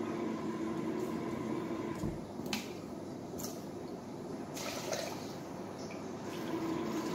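Kitchen tap running water into a plastic measuring cup, a steady rush, with a few light clicks and knocks of the cup against the tap and sink.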